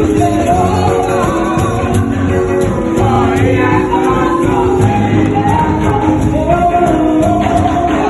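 Gospel music: a choir singing over a steady beat, with tambourine.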